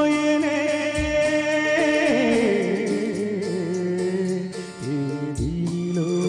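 A man singing a Telugu film song into a microphone over instrumental accompaniment, his voice bending and wavering in pitch on held notes.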